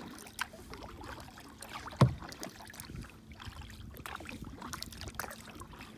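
Kayak being paddled in calm water: paddle strokes with small splashes and drips, and many light clicks. One sharp knock about two seconds in is the loudest sound.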